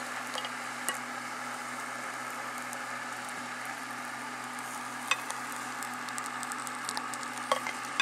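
The melted, charred plastic of a shower radio, fresh from the microwave with its batteries burst, sizzling steadily while still hot. A few sharp crackles sound about a second in, near the middle and near the end.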